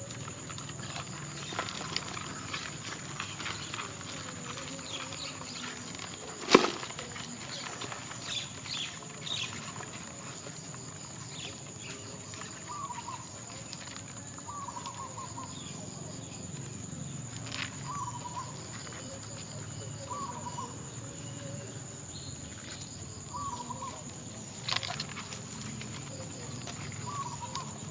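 A short animal call repeats every two to three seconds through the second half, over a steady high-pitched whine. Scattered knocks and rustles come from handling, with one sharp knock about six seconds in as the loudest sound.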